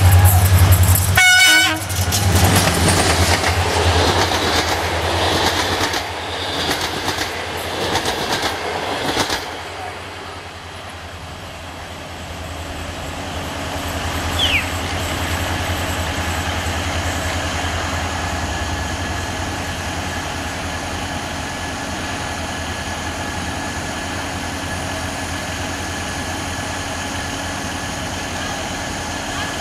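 CFR Class 65 'GM' diesel-electric locomotive passing with a passenger train. Its engine runs loud, a short horn blast sounds about a second and a half in, and then the coaches clatter past over the rail joints for several seconds. About ten seconds in the train has passed, and a quieter, steady rumble remains.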